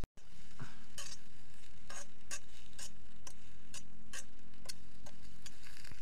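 A knife clinking and scraping against a small metal pan while stirring potato chunks over a campfire, in irregular clinks about two a second.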